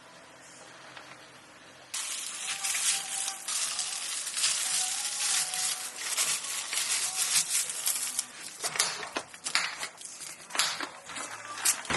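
Dense crunching and crackling with many sharp clicks, starting suddenly about two seconds in: something being crushed or handled during drink or dessert preparation.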